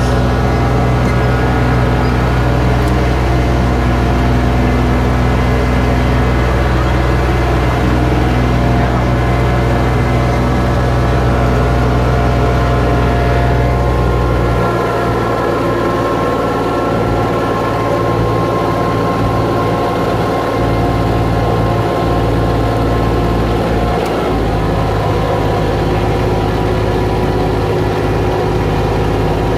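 Engine of a John Deere tractor unit pulling a small farm ride train, running steadily under way. About halfway through the deep low hum thins and the engine note shifts, then it runs on evenly.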